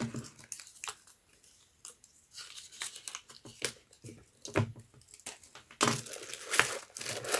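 Paper and a folded nylon tote rustling and crinkling as hands handle them, in short irregular rustles with a few light clicks. A busier stretch of rustling starts about six seconds in.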